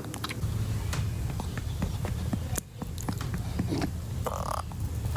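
Light, irregular pats on a Chihuahua's back as it is burped after a meal, with a short, rough sound a little over four seconds in.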